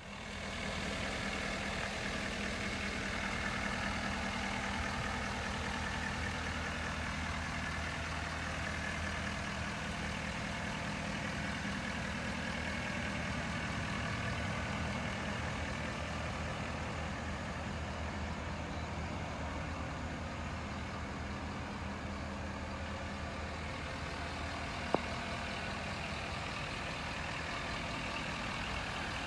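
2011 Ford F-350's 6.7L Power Stroke turbo-diesel V8 idling steadily. A single sharp click near the end.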